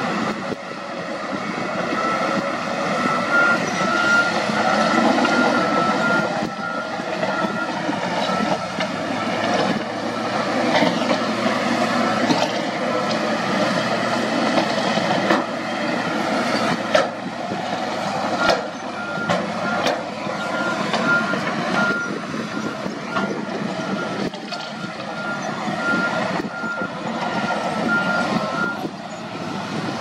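Diesel engines of a wheel loader and dump trucks running under load while pushing and tipping rock, with scattered knocks of rock. A reversing alarm beeps steadily from a few seconds in for several seconds, and again through the last third.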